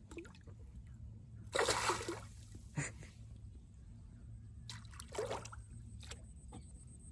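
Water splashing at the side of a wooden boat as a hooked fish is drawn in on a hand line. There are two splashes, one about a second and a half in and one about five seconds in, with a sharp tap after each.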